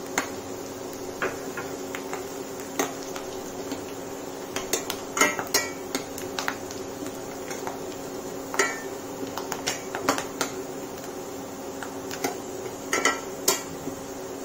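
Spatula stirring in a kadhai of frying onion, peanuts and curry leaves: irregular knocks and scrapes against the pan, over a steady low hum.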